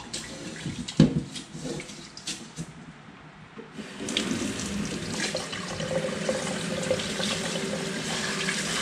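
Rice being washed by hand in a metal rice-cooker pot at a kitchen sink. Scattered knocks and swishes come first, then about four seconds in a tap starts running steadily into the pot.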